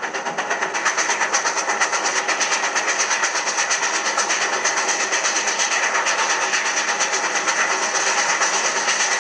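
Steam locomotive running: a steady, fast rhythmic beat of exhaust and wheels with strong hiss.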